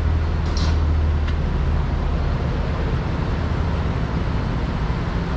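Car engine running with a steady low hum that gives way to a rougher rumble about two seconds in. A brief hiss comes about half a second in.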